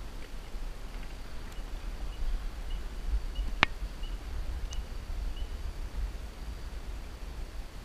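Outdoor ambience: a steady low rumble, with a faint high chirp repeated about twice a second through the middle and one sharp click about three and a half seconds in.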